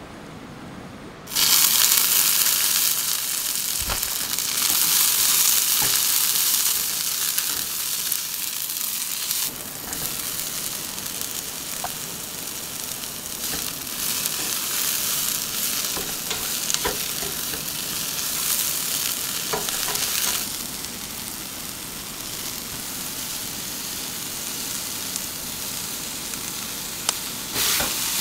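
Food sizzling in a hot frying pan. The sizzle starts abruptly about a second in and keeps going, with occasional small clicks of stirring.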